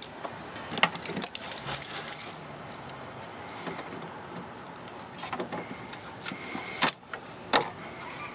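Locking needle-nose pliers clicking and clinking against spring hose clamps on heater hoses: a scattering of sharp metallic clicks, the loudest two near the end.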